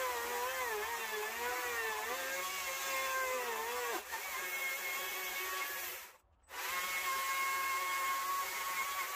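Handheld electric carving power tool running and cutting into Western red cedar, its high motor whine sagging and wavering in pitch as it bites in under load. The sound breaks off for about half a second a little after six seconds, then the whine resumes steadier.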